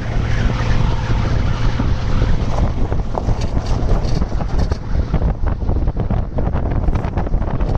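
Van driving over rough lake ice: a steady rumble of engine and tyres on the ice, with wind buffeting the microphone held outside the vehicle. In the second half the noise turns crackly as the wheel runs onto snow-covered ice.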